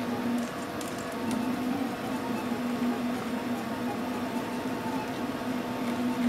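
RepRap Prusa Mendel 3D printer printing, its stepper motors whining steadily, with a low tone that keeps cutting out and coming back as the axes move.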